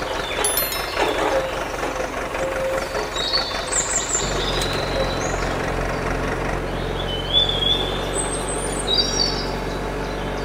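Small electric motors of a homemade mini excavator running steadily as its arm and bucket dig into gravel, with a deeper hum joining about four seconds in. Birds chirp a few times in the background.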